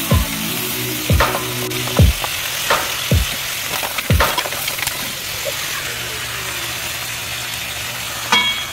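Raw seafood (shrimp, crabs, mussels, squid) sizzling steadily in a hot wok. Through the first half a wooden spatula knocks and scrapes against the pan with sharp, irregular strokes.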